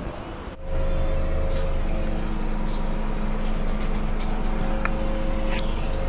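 Bus engine heard from inside the passenger cabin: a steady low rumble with a constant hum and a few light rattles. It starts abruptly about half a second in, after a short quieter stretch.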